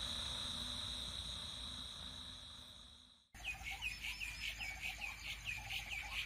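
Crickets chirring as a steady high trill that fades and ends about three seconds in. After a short gap of silence, small birds chirp with quick repeated calls.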